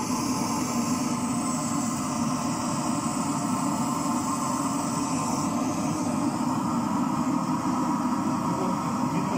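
Steady, even roar of the bell-casting works while molten bronze is poured into the bell mould.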